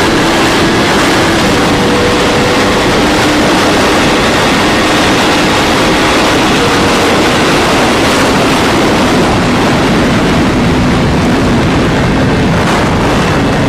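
Yamaha R1M's inline-four engine, fitted with a one-off sport exhaust, running at a steady road speed under a loud, steady rush. Its note drifts slowly lower.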